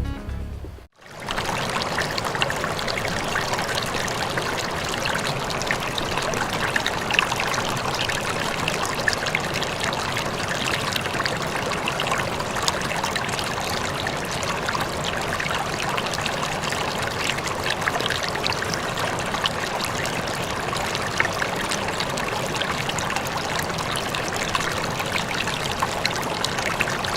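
Steady rushing noise of running water, with faint scattered ticks, after a short tail of music that stops about a second in.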